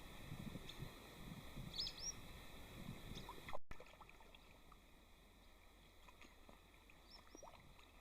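Faint outdoor ambience by a pond, with soft low thumps through the first half, the loudest about three and a half seconds in. Short rising bird chirps come about two seconds in and again near the end.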